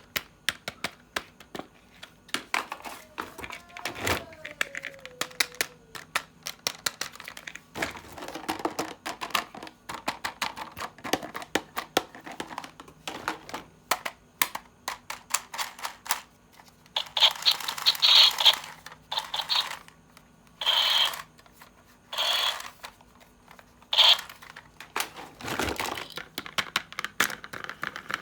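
Toy packaging and plastic toy pieces handled during unboxing: rapid clicks and taps of hard plastic, with several louder bursts of crinkling plastic wrap in the second half.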